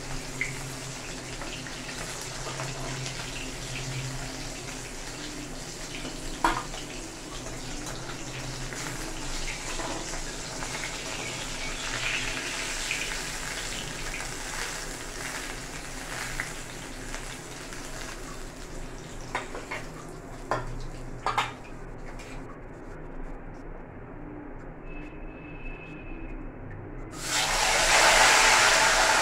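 Fish frying in hot oil in a kadai, a steady sizzle with a few sharp clinks of a steel spatula against the pan. About 27 seconds in, the sizzle jumps much louder as the next pieces of fish go into the hot oil.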